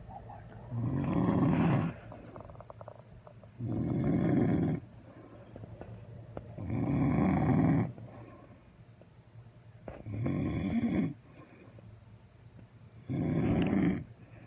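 A sleeping woman snoring: five snores, each about a second long, coming roughly every three seconds.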